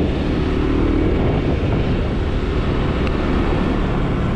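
Motor scooter engine running steadily under way, mixed with a continuous rush of wind and road noise.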